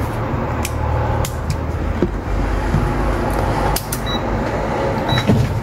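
Steady low hum of background noise with a few light clicks and taps from small parts and tools being handled while a replacement charging-port flex cable is fitted inside an iPhone 6s Plus.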